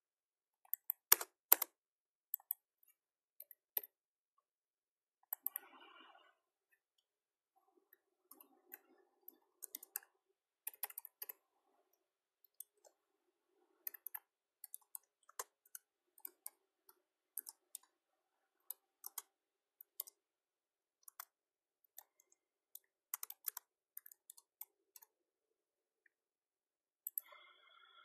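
Computer keyboard being typed on: sharp key clicks at an irregular pace, loudest in a quick cluster near the start, as a chat message is written.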